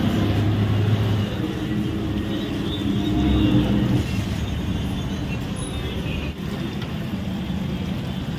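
Steady roadside traffic noise, with a motor vehicle's engine running close by that is loudest in the first few seconds.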